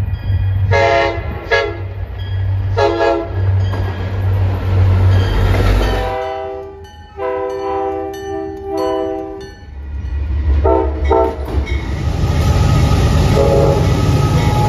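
Diesel freight locomotive horns sounding in several separate blasts, over the low rumble of locomotive engines. The rumble drops out for a few seconds in the middle, then grows louder near the end as a locomotive runs close by.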